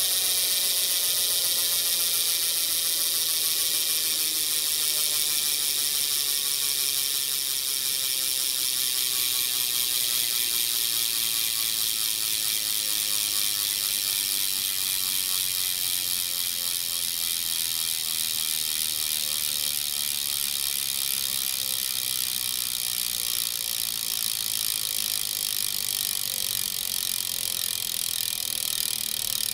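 Odyssey V3 cassette rear hub on a BMX wheel clicking rapidly as the wheel spins freely: a fast, even ratchet buzz that slowly eases as the wheel loses speed.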